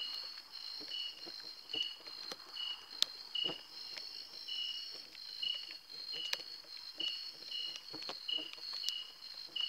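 Night insects, crickets, calling in chorus: one keeps a steady high trill while another gives a short chirp about once or twice a second. Faint clicks come through now and then.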